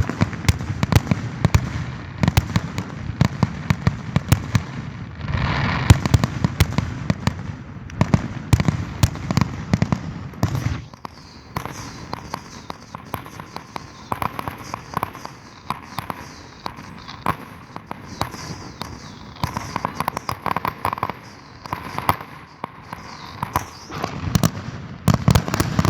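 Fireworks display going off: a steady run of bangs and crackling from aerial shells over a low rumble, with a few falling whistles in the middle.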